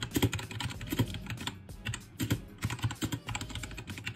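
Fast typing on a T60 mechanical keyboard with red linear switches: a quick, irregular run of key clicks and clacks.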